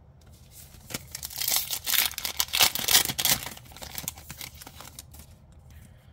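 A foil trading-card booster pack is torn open by hand, its wrapper crackling and crinkling. The tearing is loudest for about two seconds, then dies down to softer crinkles.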